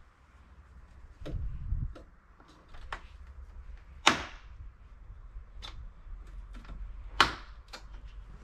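Plastic retaining clips of a BMW F31's chrome window trim snapping loose as the trim strip is pried off with a plastic trim tool: scattered light clicks, with two sharp, loud snaps about four and seven seconds in.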